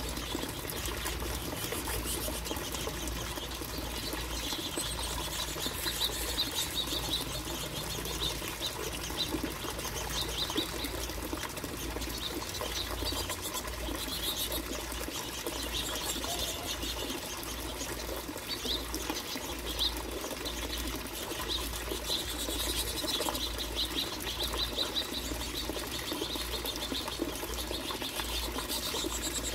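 Finches chirping and twittering at a feeder, with repeated short calls, rapid small clicks and wing flutters, over a steady low hum.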